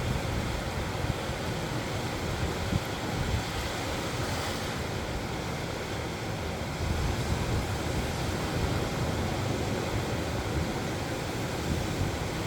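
Ocean surf washing onto the beach in a steady roar of waves, with wind rumbling on the microphone.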